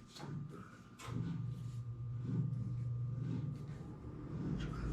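Tubing cutter being turned around a copper water pipe, its cutting wheel scoring the pipe: a few sharp clicks, then a steady low grinding from about a second in.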